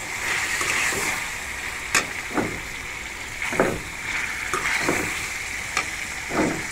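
Meat pieces sizzling in hot oil in a steel karahi as they are sautéed with spices, with a metal spatula scraping and clinking against the pan several times as it stirs.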